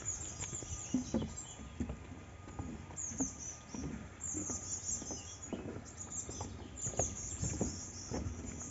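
Footsteps walking steadily along a path, with birds chirping high and busily over them.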